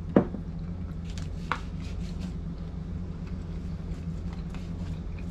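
Someone eating with a metal fork: one sharp clink just after the start and a fainter one about a second and a half in, over a steady low hum.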